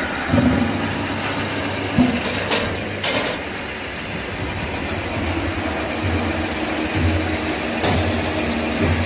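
Rotary veneer peeling lathe and its log feeder running, with a few sharp knocks in the first three seconds and a low machine hum that swells in pulses about once a second through the second half.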